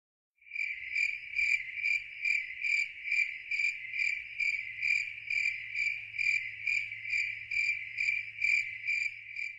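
A cricket chirping in a steady, even rhythm of about two and a half chirps a second, starting about half a second in. It is laid on as a sound effect over changing shots: the stock 'crickets' for a dead, awkward silence.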